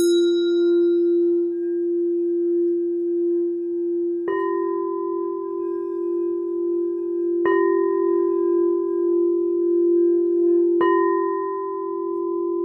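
Singing bowl held in a steady, sustained tone, with a bowl struck three times about three seconds apart, each strike ringing on with higher overtones. A higher chime's ringing fades out in the first second.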